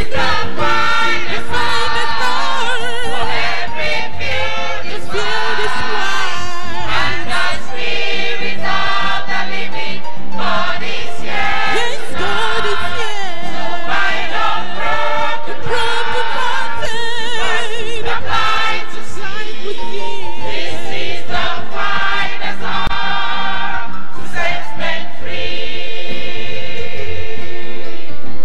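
Church choir singing a gospel song, with sustained, wavering sung notes throughout.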